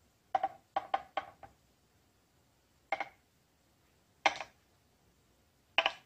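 A series of short, sharp taps: five in quick succession in the first second and a half, then single taps about every one and a half seconds.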